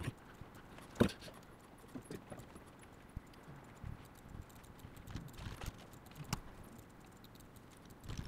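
Scattered light clicks and taps of a computer mouse and keyboard at uneven intervals, with one sharper click about a second in.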